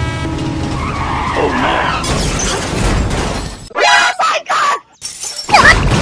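Dubbed cartoon sound effects for a toy train crash: a steady train-like rumble, short high cartoon yelps about four seconds in, then a loud crash with shattering near the end.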